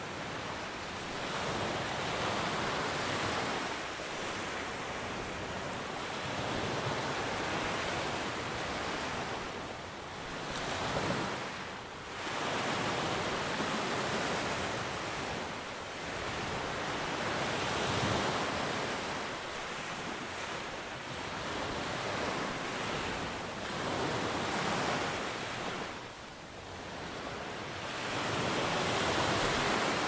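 Small sea waves breaking and washing up a sandy beach: a continuous surf wash that swells and eases with each wave, with brief lulls between the larger sets.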